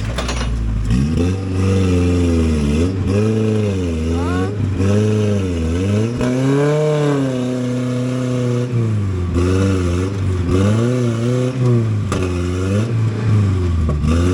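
Engine of an off-road 4x4 revving up and down over and over as it works up a rock climb. The pitch rises and falls every second or so, and is held high for a longer stretch in the middle.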